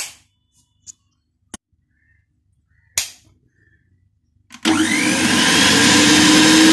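A sharp click as a wall switch is pressed, another click about three seconds in, then a kitchen mixer grinder's motor starts about four and a half seconds in and runs loud and steady, its pitch rising a little as it comes up to speed.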